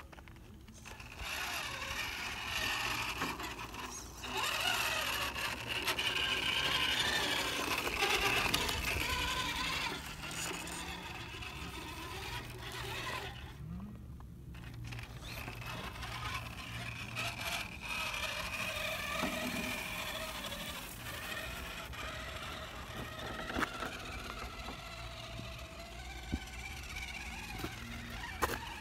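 RC rock crawler's small electric motor and gear train whining as it crawls over granite rock, the pitch wavering with the throttle. It stops briefly about halfway through, then whines on more quietly.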